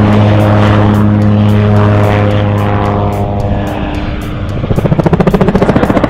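Gyrocopter's engine and pusher propeller running at a steady drone during a low flying pass. About two-thirds of the way through the sound turns into a rapid, even throbbing beat as the aircraft banks away.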